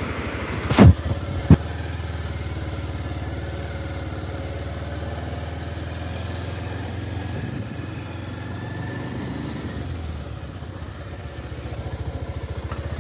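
Bajaj Pulsar 150's single-cylinder four-stroke engine running at low speed with a steady low thrum as the bike is ridden slowly. Two sharp knocks come about a second in.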